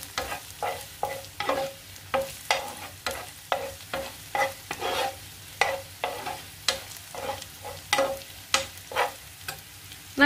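Steel spoon stirring and scraping shallots and chilli powder frying in oil in a nonstick frying pan over low heat, in quick, even strokes, with a faint sizzle underneath.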